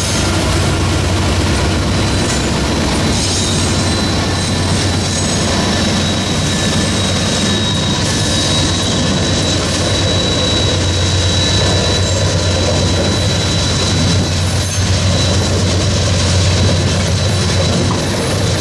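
Diesel locomotives of a loaded coal train passing close by: the lead EMD SD70ACe and a second diesel unit, with a steady low engine rumble and rolling wheel noise on the rails. A thin high whine holds steady over the rumble.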